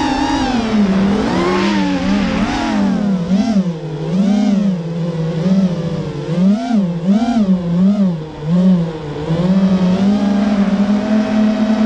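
Brushless motors and propellers of a 210-size FPV racing quadcopter (Hobbywing X-Rotor 2204 2300kv motors), heard from its onboard camera: a buzzing whine whose pitch rises and falls with the throttle, wobbling quickly up and down about twice a second in the middle, then holding steadier near the end.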